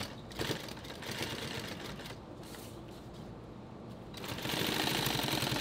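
Industrial sewing machine stitching through camouflage fabric, a fast, even clatter of needle strokes that gets louder about four seconds in.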